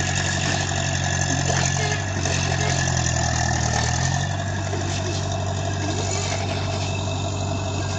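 Tractor engines running steadily at a low, idling pace, their note shifting slightly around three to four seconds in.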